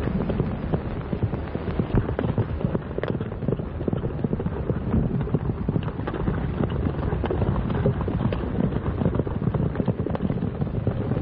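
Horses galloping: a rapid, dense, irregular clatter of hoofbeats over a low rumble.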